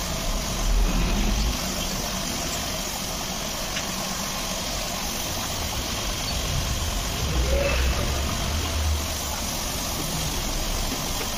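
Compressed-air paint spray gun hissing steadily while it sprays, over a low steady rumble.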